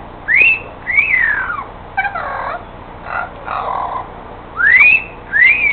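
Pet talking bird whistling: a two-part whistle, a short upward swoop then a longer rise and fall, given twice, with softer chattering sounds in between.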